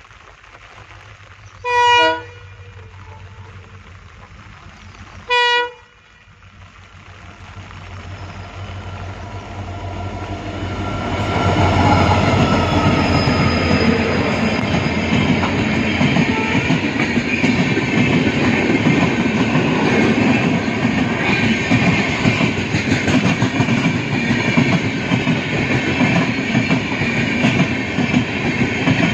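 Two short horn blasts from Indian Railways WDP-4B and WDP-4D EMD diesel locomotives, the second shorter than the first. The train then grows louder over about six seconds and passes close by with a steady loud rumble of engines and wheels on the rails.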